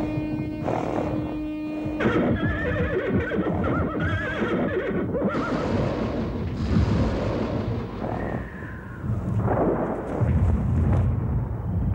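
Horse whinnying several times in a wavering voice over gusts of wind that blow its blanket off.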